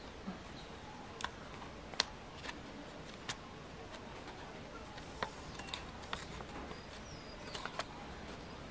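Folded A4 paper airplane crackling as fingers pinch and bend its wing edges: a scatter of short, sharp paper clicks and crinkles, about eight of them, over a faint steady hiss.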